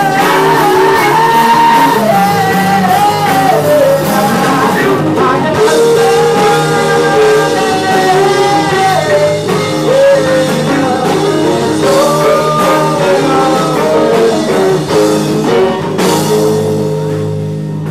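Live rock band: a man singing over electric guitar and the rest of the band.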